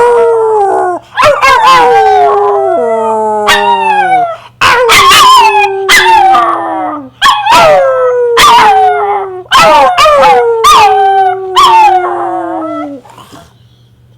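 Small Pomeranian-Chihuahua mix dog howling over and over, set off by the cue "who is it?". Each howl starts sharply and slides down in pitch, about a dozen in a row, and they stop about a second before the end.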